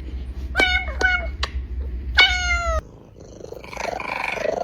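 Kitten meowing: three short, high meows in quick succession, then a longer one. About three seconds in, a rougher, raspy cat sound takes over and grows louder.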